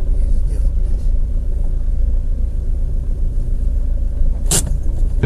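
Steady low rumble of a car idling, heard from inside the cabin through a dashcam's microphone. A single sharp click comes about four and a half seconds in.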